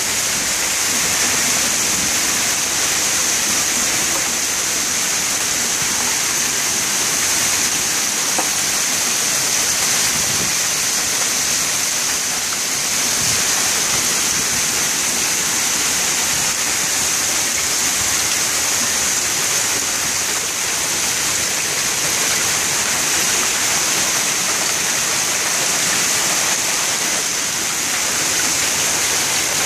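Hailstorm with heavy rain: hail and rain falling on the lawn, pavement and parked cars in a dense, steady hiss.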